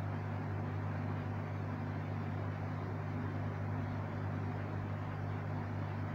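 A steady low hum under a constant hiss, unchanging throughout.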